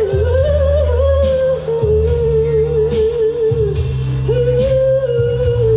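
Woman singing long, wordless held notes with a wavering pitch and slow slides between notes, over a recorded backing track with a steady bass line.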